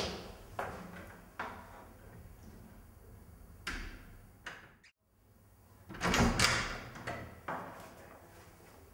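Interior wooden door with a lever handle being shut and then opened again: a series of sharp handle and latch clicks and knocks, with the loudest, fuller sound about six seconds in.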